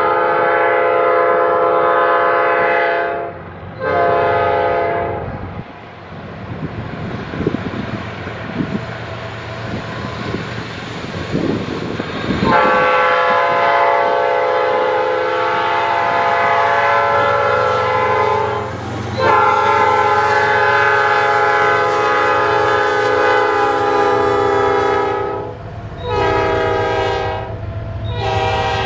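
Norfolk Southern diesel freight locomotive's air horn sounding a chord of several notes in a sequence of long and short blasts as the intermodal train approaches and passes. Between the blasts come the locomotive's engine rumble and the wheel noise of the passing double-stack cars.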